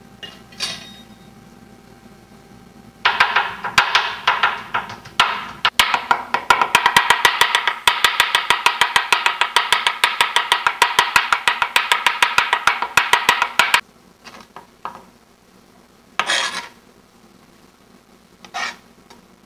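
Kitchen knife chopping on a wooden cutting board, dicing sliced turkey: sharp knocks that start about three seconds in, quicken to about six a second, then stop abruptly, with a few scattered chops after. A steady held note sounds under the fast chopping.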